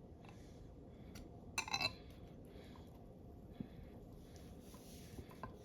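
Kitchenware clinking: a brief cluster of ringing clinks, like glass or a dish being knocked, about a second and a half in, then a few faint taps and clicks of things being handled.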